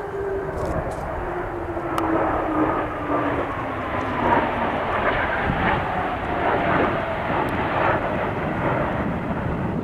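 McDonnell Douglas F/A-18 Hornet jets flying past, the steady jet noise carrying whining tones that fall slowly in pitch as the aircraft go by.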